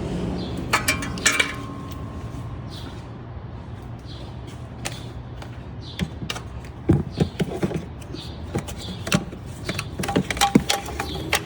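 Hand tools and metal car parts clinking and knocking while an alternator bolt is worked loose. There is a short metallic ring about a second in, then scattered clicks and knocks that bunch together in the second half.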